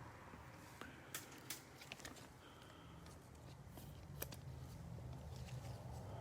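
Faint clicks and light rustling of trading cards being handled and slid through a pack. Several sharp ticks come about one to two seconds in and one more just after four seconds, over a low hum that grows slightly near the end.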